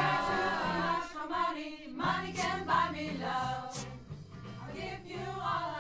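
Pop choir singing, with sung words over a held low note.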